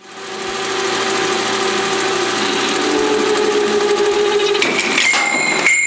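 Grizzly metal lathe running with a cutting tool biting into a thinly gripped aluminum fly-reel spool, a loud steady cutting noise. About five seconds in the sound changes: a few sharp clattering knocks and a high ringing tone as the poorly held part is torn out of the chuck.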